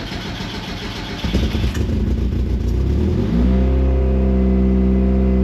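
Turbocharged Mazda Miata 1.6-litre four-cylinder starting for the first time on a freshly fitted cast turbo manifold. It turns over roughly, catches and revs up, then settles into a steady fast idle about three seconds in. It runs without the loud exhaust-leak noise of the old cracked manifold.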